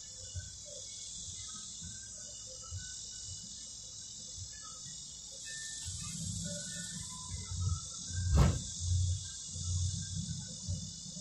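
Steady high-pitched insect chorus, with a few faint chirps over it. From about six seconds in, low rumbling handling noise on the microphone, with one sharp knock about eight and a half seconds in.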